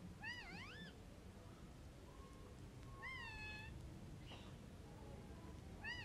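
Rose-ringed (Indian ringneck) parakeet giving a few short, faint whistled calls that dip and rise in pitch, sounding somewhat like a cat's meow.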